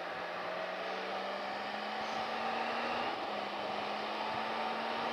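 Motorcycle riding at road speed: steady wind rush over the windscreen and helmet with a low, steady engine drone underneath, growing slightly louder as the bike gets up to speed.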